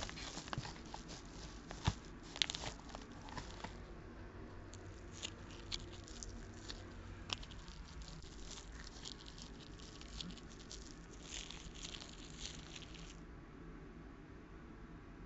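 Soft paper crinkling and scratchy rustling in short irregular bursts, with scattered small clicks, like a scrunched paper straw wrapper being worked. It thins out about two seconds before the end.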